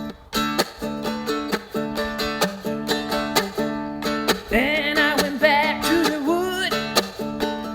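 Seagull acoustic guitar strummed in steady, repeated chords. About halfway through, a voice joins, singing without clear words over the strumming.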